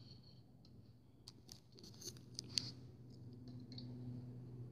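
Faint handling noise from a 1:200 scale Boeing 777-300ER model being turned over in the hand: light scraping and rustling with a few small clicks, the sharpest about two and a half seconds in, over a steady low hum.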